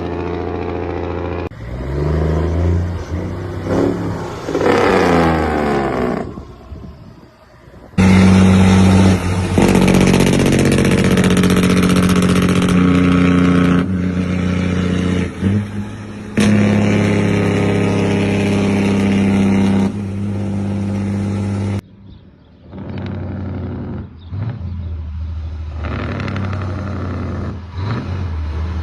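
Heavy truck engines in a string of separate clips: an engine revving up and down, then a louder, steady run, with abrupt changes of sound about 8 and 22 seconds in.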